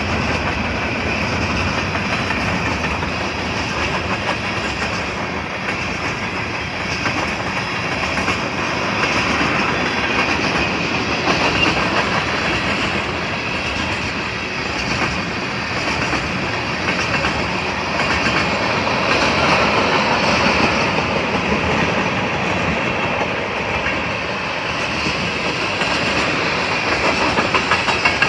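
Freight train's covered hopper cars and tank cars rolling past close by: a steady noise of steel wheels on the rails with faint regular clicks as the wheels cross the rail joints.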